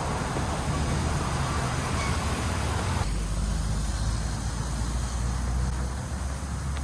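Steady low outdoor rumble with a hiss over it; the hiss drops away suddenly about three seconds in while the rumble goes on.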